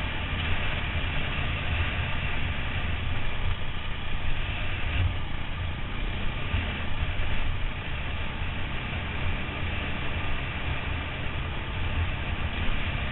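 Trail motorbike running along a dirt lane, a steady engine note with wind buffeting the helmet-mounted microphone.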